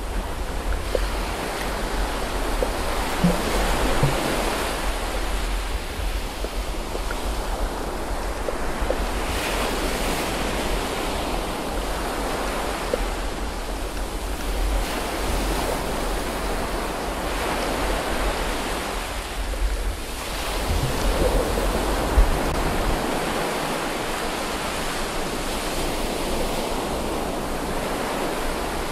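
Water noise recorded underwater while snorkeling: a steady rushing hiss that swells and fades every several seconds, over a low rumble that drops away about three quarters of the way through.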